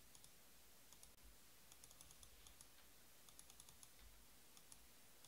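Near silence broken by faint, irregular light clicks that come in small clusters.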